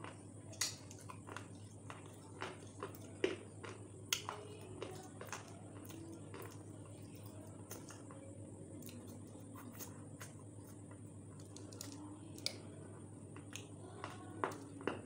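A person eating food close to the microphone: irregular sharp mouth clicks, smacks and chewing, busiest in the first few seconds and again near the end, over a steady low hum.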